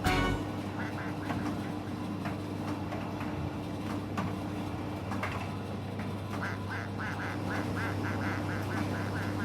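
Miele T5205 tumble dryer running with its door open: a steady motor hum under the turning drum, with a quacking squeak that repeats about three times a second in the second half.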